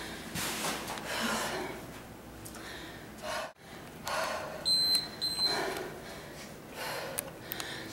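Heavy, rhythmic exercise breathing with hard exhales, interrupted near the middle by two short high beeps about half a second apart from an interval timer marking a change of interval.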